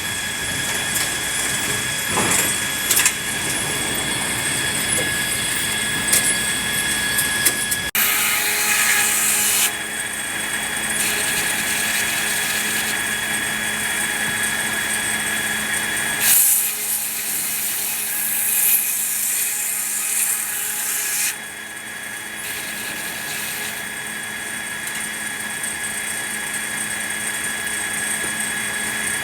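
Sawmill machinery running and sawing red pine: a loud, steady mechanical noise with fixed high tones. The sound shifts abruptly about eight, sixteen and twenty-one seconds in.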